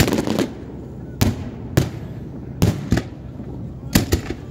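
Aerial fireworks bursting: a rapid cluster of crackling reports at the start, then about six separate sharp bangs at irregular intervals through the rest.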